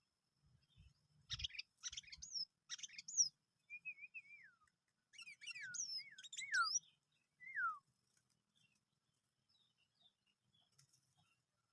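Sooty-headed bulbul calls: scratchy chattering notes, then several clear whistled notes that slide down in pitch, ending about two-thirds of the way in.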